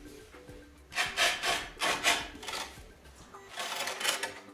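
Wooden door threshold board scraping and rubbing against the gritty concrete and door frame as it is worked loose and lifted out: a run of rough scraping strokes starting about a second in, then a shorter burst near the end.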